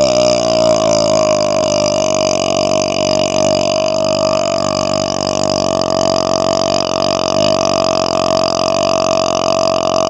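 A man's long, deep burp held as one unbroken sound, loud and steady in pitch.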